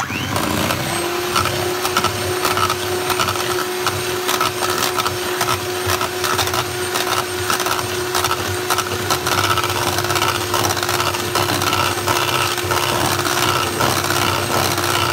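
Electric hand mixer switching on and running at a steady speed, its beaters whirring through thick cake batter in a stainless steel bowl with many small clicks as they knock against the bowl.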